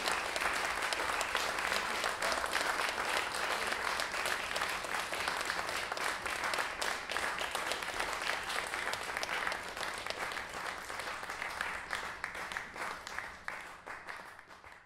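Audience applauding, a dense patter of many hands clapping that thins and fades away over the last couple of seconds.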